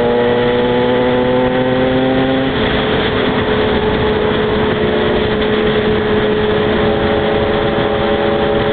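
Small two-stroke motorcycle engine running under way. Its pitch climbs slowly for about two and a half seconds, then drops and holds steady with a rougher, noisier sound.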